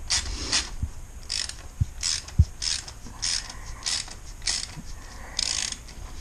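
Small hand ratchet clicking in a series of short back-and-forth strokes, about one every half second, as a screw is wound back in. Two short knocks of the tool come about two seconds in, the second the loudest sound.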